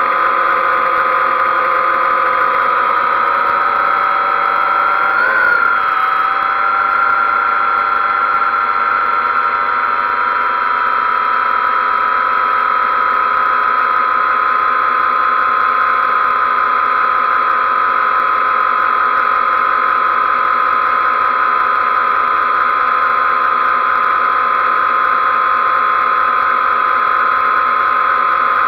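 XK X380 quadcopter's motors and propellers whining steadily while it hovers, with a brief rise and dip in pitch about five seconds in.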